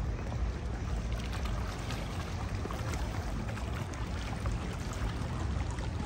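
Wind rumbling on the microphone over a steady outdoor hiss, with faint scattered ticks.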